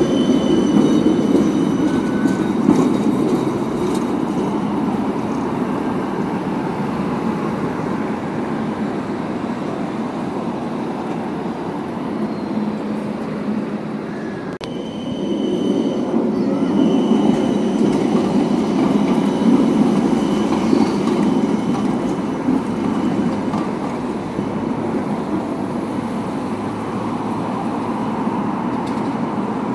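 Helsinki trams on curving street track: a steady rumble of steel wheels on the rails, with brief high wheel squeal on the curve about a second in and again about halfway through. The rumble dips about halfway and then builds again.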